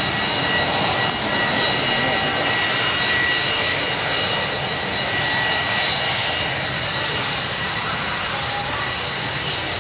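Kawasaki C-1 jet transport's turbofan engines running steadily, with a high whine over the roar.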